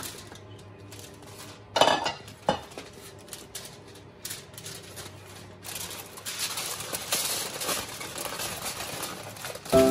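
Chestnuts tumbling and being moved about on a sheet of aluminium foil on a baking tray, with two sharp knocks about two seconds in. From a little past halfway, the foil crinkles steadily as it is folded over the chestnuts.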